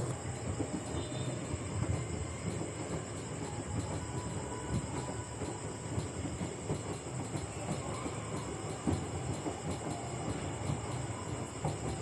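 LG Direct Drive 7 kg front-load washing machine in its wash cycle, the drum turning wet, soapy laundry in water with a steady low churning noise.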